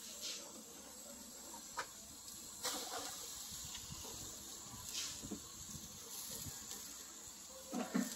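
Faint steady hiss with a few light knocks and clicks as raw goat lungs are lifted from a metal bowl and laid on a charcoal grill grate.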